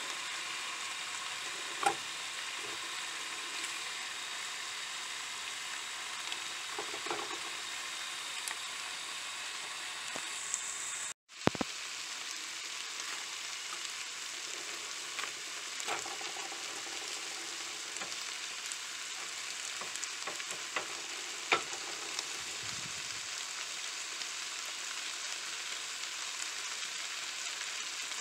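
Chicken taco filling and a flour tortilla cooking in pans on a camp stove: a steady frying sizzle, with a few sharp clinks of pan or utensil and a brief break partway through.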